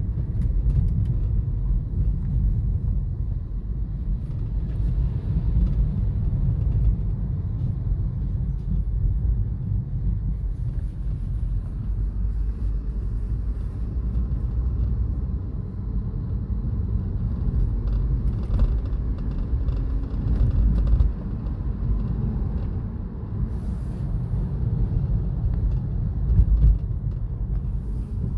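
Low road and drivetrain rumble inside a 2015 BMW 328i's cabin on the move, with occasional short knocks or rattles over bumps, the loudest near the end. The noise comes from a loose clip on the parking-brake cable bracket, which rattles over any unevenness in the road.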